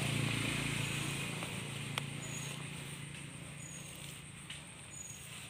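A vehicle engine hums steadily and slowly fades away, with a single sharp click about two seconds in and faint, short high chirps repeating.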